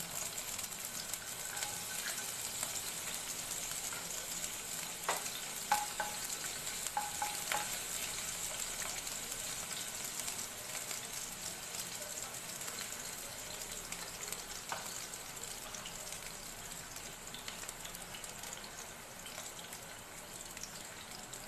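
Chopped ginger and garlic sizzling in hot oil in a non-stick kadai, with a few sharp pops about five to eight seconds in. The sizzle slowly eases off.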